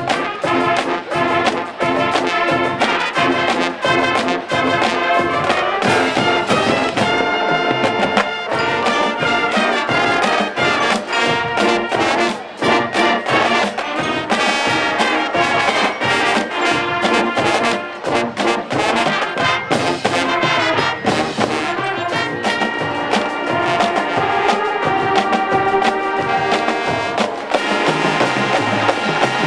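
High school marching band playing full out: trumpets and trombones carry the tune over a steady drumline beat.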